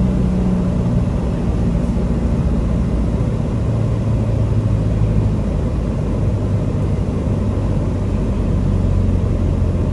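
Light single-engine airplane's engine and propeller droning steadily, heard inside the cockpit over a constant rumble of cabin noise; the engine note drops lower about three and a half seconds in.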